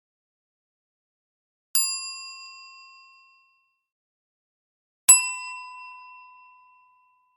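A small bell struck twice, about three seconds apart: each strike is a single bright ding that rings out and fades over a second or two.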